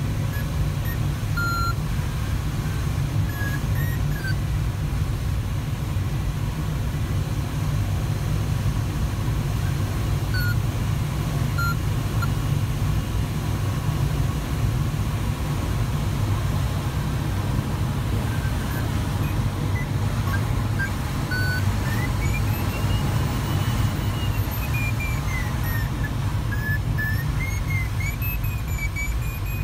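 Steady airflow noise in the cockpit of a Sparrowhawk ultralight glider in flight, with short scattered electronic beeps and, about two-thirds of the way through, a tone that glides up and back down, then wavers: the variometer's audio signalling climb and sink.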